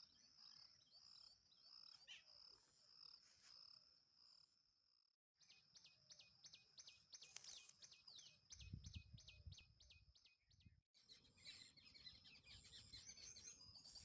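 Faint rural birdsong: several birds chirping and calling over a steady high whine, cut off twice briefly. A low rumble comes through for about a second about two-thirds of the way in.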